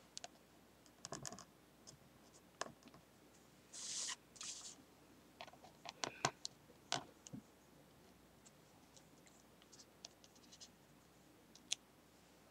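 Hands handling paper on a desk: faint, scattered taps and clicks, with two short scratchy rustles about four seconds in.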